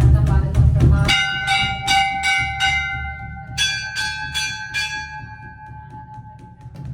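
A metal bell struck twice, about a second in and again a little past the middle, the second strike slightly higher in pitch. Each stroke rings on and slowly fades, with a faint steady ticking beat underneath.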